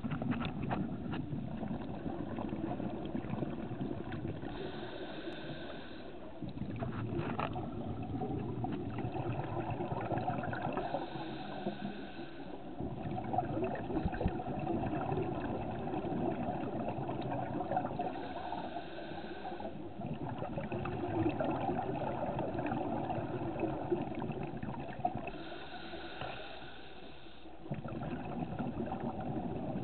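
Scuba breathing through a regulator, heard underwater: four inhales through the demand valve, each lasting a second or two with a thin whistling tone, about seven seconds apart, between long bubbling exhales.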